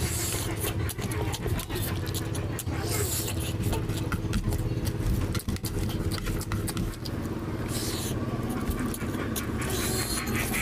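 Close-miked eating by hand: wet chewing, lip-smacking and slurping of rice and oily curry, with fingers squishing and mixing rice on a plate, many short clicks and a few louder wet bursts, over a steady low hum.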